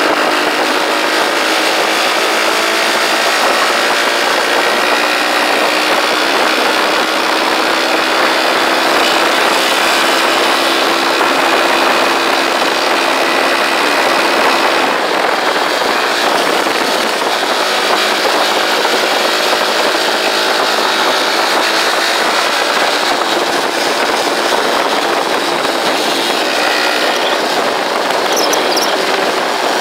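Motorcycle engine running steadily at cruising speed on the open road, mixed with heavy wind rush on the handlebar-mounted camera's microphone.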